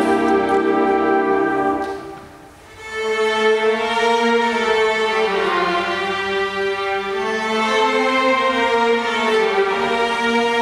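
Symphony orchestra playing a film-music medley: the full ensemble fades out about two seconds in, then the violins and cellos take up a slow, sustained melody.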